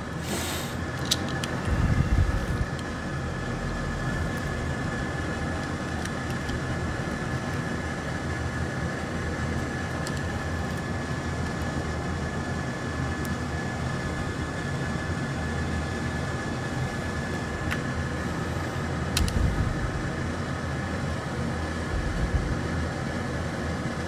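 Steady mechanical whir of workbench equipment, carrying a faint steady high whine, with a few soft low thuds and light clicks from handling on the bench.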